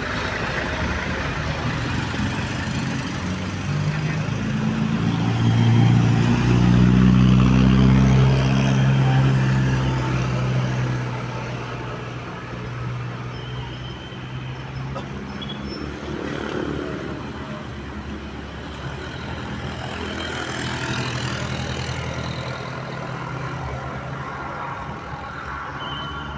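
A heavy road vehicle's engine passing close by, its low drone swelling to loudest about six to ten seconds in and then fading. Traffic carries on behind it, and a second, smaller swell comes near the end.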